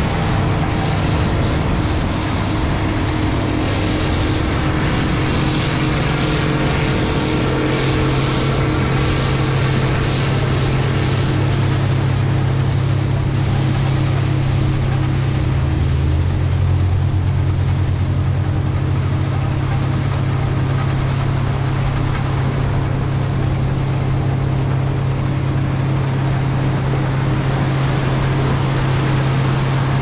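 Steady, loud mechanical hum from running machinery, a low droning tone that steps to a different pitch about seven seconds in and again around sixteen seconds.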